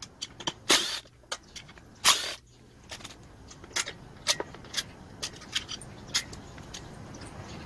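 A cordless drill-driver runs in two short bursts about a second and a half apart, backing bolts out of a small blower engine's housing. A run of light clicks and taps follows as bolts and plastic parts are handled.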